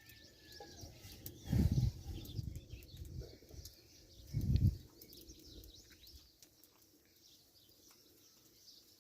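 Small birds chirping faintly in the background, with two dull low thumps about a second and a half and four and a half seconds in.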